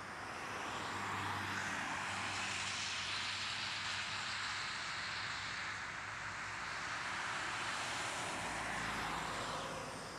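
Airbus A330-300's jet engines at takeoff power as the airliner starts its takeoff roll, heard from a distance: a steady rushing noise with a faint low hum. It builds over the first second or so and eases a little near the end.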